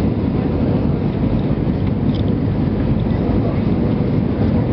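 Steady, deep cabin roar inside an Airbus A320 on approach, heard from a window seat beside the wing: airflow and the aircraft's IAE V2527-A5 turbofan engines blending into an even rumble.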